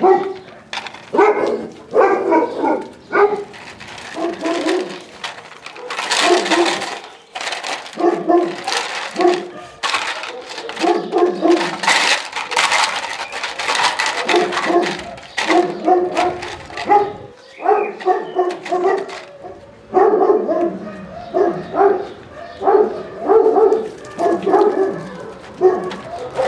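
Dobermann puppies barking and yapping in short, high calls, over and over. Bursts of crackling come in between, from the plastic bottles they bite and tug at.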